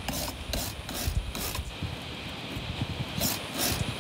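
Hand wire brush scrubbing the rusty steel coil springs and frame of a car seat, in quick back-and-forth strokes about three a second, rubbing the rust down before rust converter goes on. The strokes pause for about a second and a half in the middle, then start again near the end.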